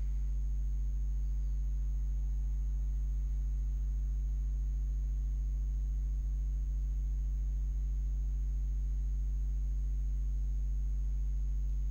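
Steady electrical hum with a low fundamental and a stack of overtones, unchanging throughout; the recording chain is picking up mains hum and nothing else is heard.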